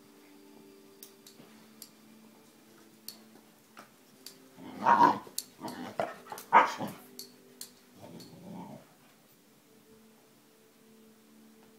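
A husky vocalizing in a few short, loud outbursts of growly whines and yips during play, bunched about halfway through, with a softer one a couple of seconds later.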